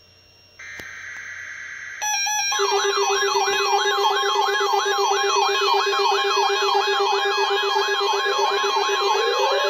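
Emergency Alert System test signal: a burst of shrill digital data tones, a half-second gap, then another burst. From about two and a half seconds in, a warbling electronic alert tone sweeps up and down about three times a second over a steady low tone.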